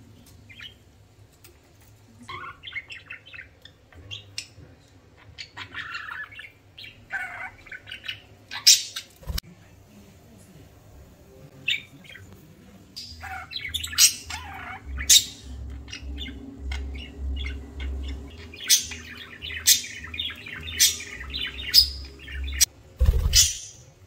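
Pet budgerigars chirping and chattering in short bursts, with sharp clicks scattered among the calls.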